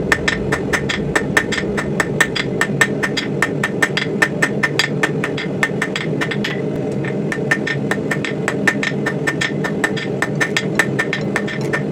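Hammer blows on steel at an anvil, rapid and fairly even at about four a second, each with a short ringing note, over a steady low drone.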